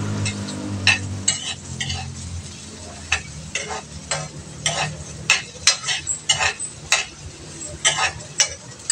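A metal spatula scraping and clinking against a wok in irregular strokes as okra is stir-fried, with oil sizzling underneath.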